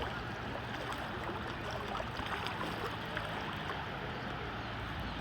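Shallow seawater sloshing and splashing around the legs of a person wading knee-deep: a steady watery wash with small scattered splashes.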